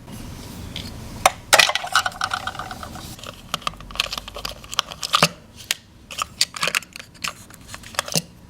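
Small plastic toy pieces and their packaging being handled: a run of sharp clicks and taps, with a brief squeaky scrape about two seconds in.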